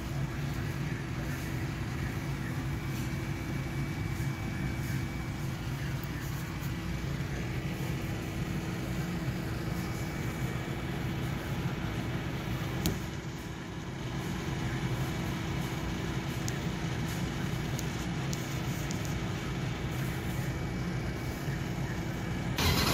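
A steady, muffled mechanical hum with a faint steady whine over it, with one short click about halfway through. At the very end a much louder sound cuts in abruptly.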